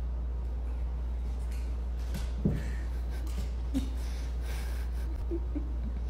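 A dog rolling and scrambling on a hardwood floor: a soft thump about two and a half seconds in, a smaller one a second later, and a few short snorts near the end, over a steady low hum.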